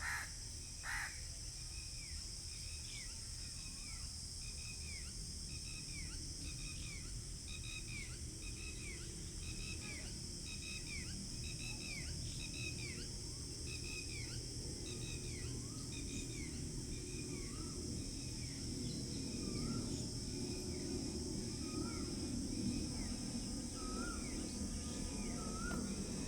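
Rural pondside ambience: a steady high drone of insects, with a bird repeating a short falling call about once or twice a second throughout and a crow cawing at the very start. A low rumble slowly grows louder over the second half.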